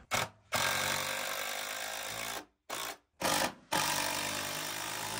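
Cordless impact driver driving long screws through a wooden ledger board into the wall framing. It runs in bursts: a brief blip, a run of about two seconds, two short bursts, then another run of about two seconds, each stopping sharply.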